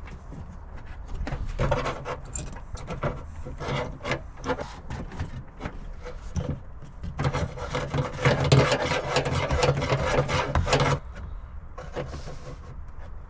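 Fuel pump assembly being worked back into the fuel tank by hand: irregular clicks and rubbing of plastic and metal parts, with a dense, louder stretch of rasping scraping from about seven to eleven seconds in.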